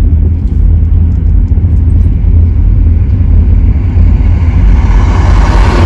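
Car driving slowly, heard from inside: a loud, steady low rumble of engine and road noise, with a rush of noise swelling near the end like passing highway traffic.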